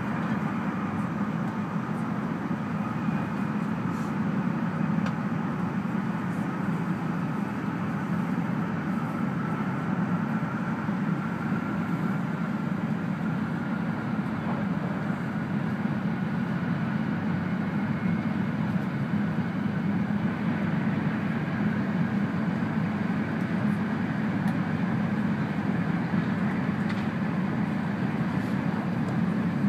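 Cabin noise inside an E2 series Shinkansen running at speed: a steady rumble of wheels and rushing air, with a faint high tone that drifts slightly in pitch.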